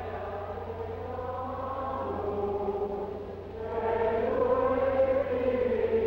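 Church choir chanting liturgical music in long held notes, growing louder about four seconds in.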